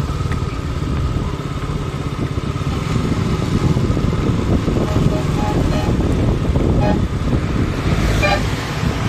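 A motor vehicle engine running steadily, with short high-pitched sounds about five to six seconds in and again about eight seconds in.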